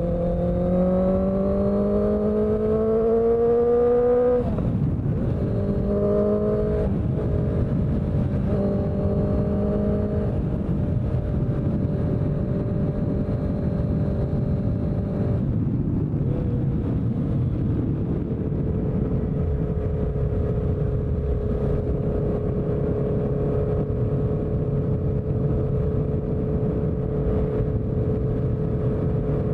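Honda CBR650F's 649 cc inline-four engine, fitted with a CS Racing exhaust. Its revs climb for about four seconds, dip, then hold steady, and settle a little lower about halfway through, staying steady after that.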